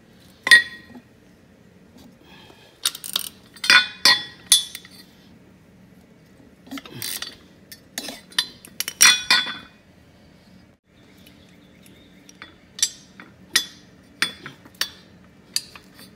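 Ratchet with a 1/2-inch socket and a box-end wrench working a nut off a steel tractor pedal bracket: sharp metal-on-metal clinks and clicks in irregular clusters, then a run of single clicks about every half second to a second near the end.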